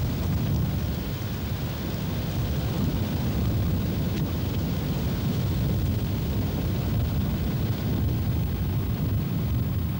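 Steady low rumble of a car driving slowly along a country road, engine and tyre noise heard from the car itself, with wind buffeting the microphone.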